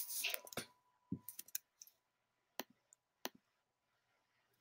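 A short noisy burst at the start, then a few faint, sharp clicks spaced well apart.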